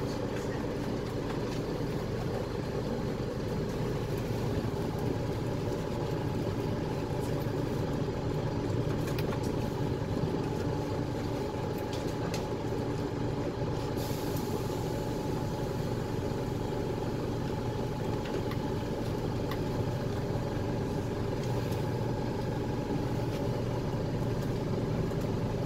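Steady engine and running hum of a KL6850A2 low-floor midibus, heard from inside the passenger cabin.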